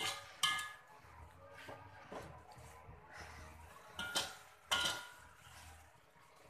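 Slotted metal spatula stirring and scraping through thick curry in an aluminium wok, clanking against the pan's side with a brief metallic ring. There are two sharp clanks at the start and two more about four seconds in, with softer scraping between them.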